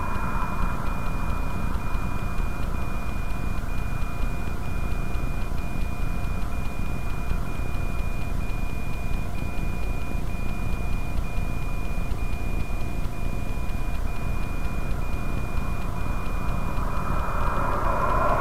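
Steady low rumble inside a vehicle parked on a highway shoulder, with a high tone that cuts out briefly about once a second. A car passes on the highway near the end.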